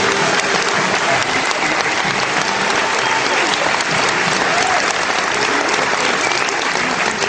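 Audience applauding steadily, a dense clapping of many hands with faint crowd voices underneath.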